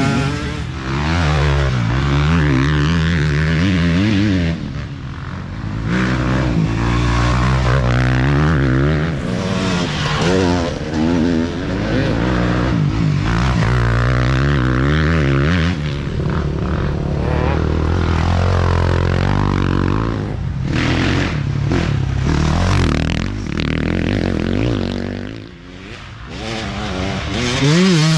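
Dirt bike engines revving hard as several riders pass close by one after another, pitch climbing and dropping through the gears. The sound fades briefly near the end, then another bike comes through loud.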